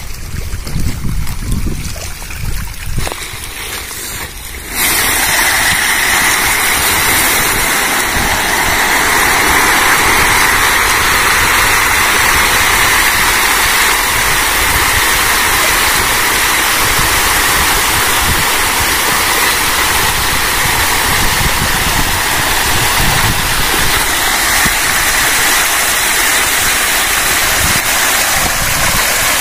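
Hybrid magur catfish crowding and thrashing at the water's surface in a feeding frenzy, a loud steady churning splash of water. It starts abruptly about five seconds in, after a quieter stretch of low rumble.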